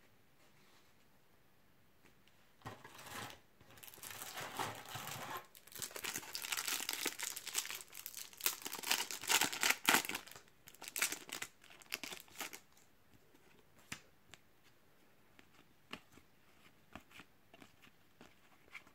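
A Topps Match Attax trading-card pack wrapper crinkling and tearing as it is ripped open, for about ten seconds with the loudest crackling in the middle. Near the end there are only faint clicks and slides as the cards are handled.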